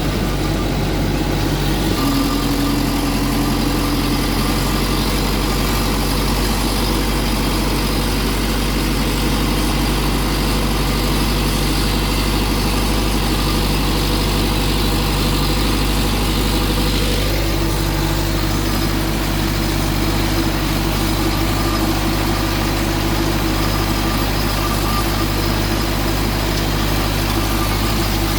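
Tractor engine running steadily, its note shifting slightly about two seconds in and again a little past halfway.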